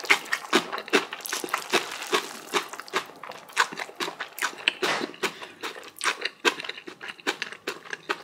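Close-miked mukbang eating of Chapagetti black bean instant noodles: quick wet mouth smacks and chewing, several a second in an irregular run.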